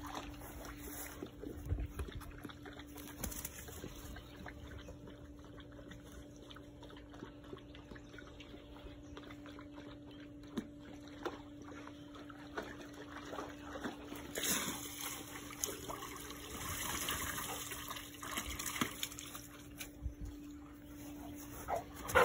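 A dog panting and moving about on grass, loudest for a few seconds just past the middle, with scattered small clicks. A steady low hum runs underneath.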